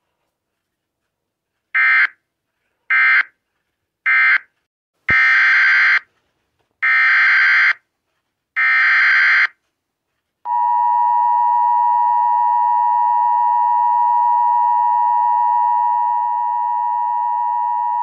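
Emergency Alert System data tones: three short bursts of end-of-message code, then, after a click, three longer bursts of a SAME header. Then the steady two-tone EAS attention signal sounds for about eight seconds.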